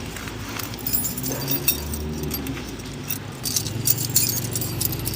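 Small metal objects being handled, with light clinking and clicking that gets busier in the second half, over a low, steady rumble.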